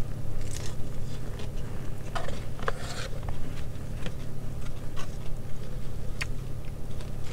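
Close-up eating sounds: chewing and crunching with scattered short crackles and clicks of food being picked from a plastic takeout tray, over a steady low hum.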